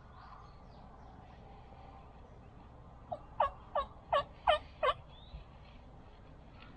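A wild turkey yelping: a run of six short, clear notes, about three a second, the first one faint.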